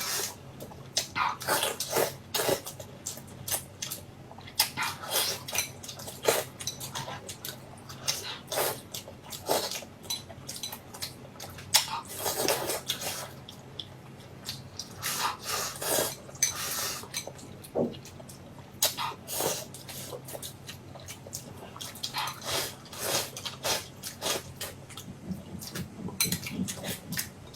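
A person chewing and smacking while eating: an irregular string of short mouth clicks and smacks with brief pauses.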